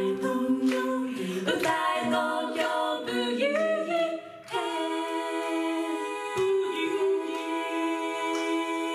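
Female a cappella quartet singing the closing bars in close harmony, with the voices gliding upward together. About halfway through they land on one long held chord.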